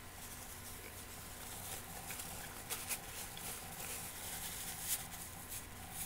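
A paper napkin being handled at the mouth: faint rustling with a few sharp crackles, the loudest two close together a little under halfway through and one more near the end.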